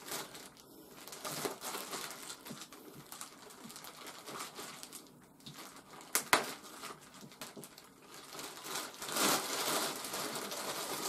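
Packaging being unwrapped and handled, crinkling and rustling, with one sharp knock about six seconds in and louder rustling near the end.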